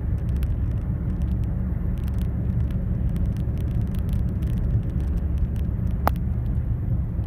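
Steady low road and engine rumble inside a car's cabin at motorway speed, with a single short click about six seconds in.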